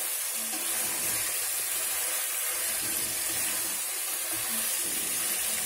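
Raw chicken pieces frying in hot oil in a pot with a steady, watery sizzling hiss, as the water the meat releases cooks off; a spoon stirs them through the pan.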